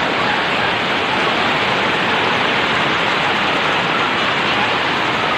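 Rushing typhoon floodwater with heavy rain: a loud, steady noise.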